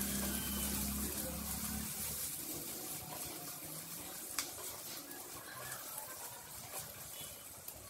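Diced carrot, green peas and capsicum sizzling in hot oil in a pan while a silicone spatula stirs them, the sizzle slowly fading. A low hum stops about two seconds in, and there is a single click a little past halfway.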